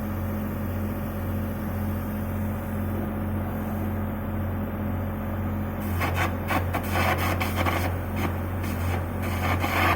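A steady low hum of welding equipment; about six seconds in, an electric arc strikes and goes on with irregular crackling and hissing.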